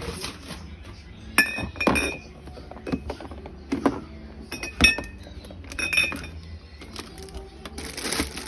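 Glass drink bottles clinking against each other as they are set into a refrigerator: several sharp clinks with a brief ring, and a longer rustling slide near the end.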